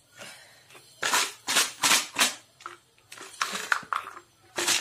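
Clear plastic packaging being handled, giving a run of short crinkling rustles about a second in and another cluster around three seconds in.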